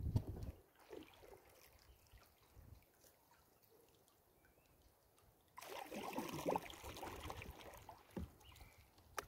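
Water trickling and splashing around a plastic kayak, very quiet at first, then a louder stretch of splashing from about halfway through that lasts a couple of seconds.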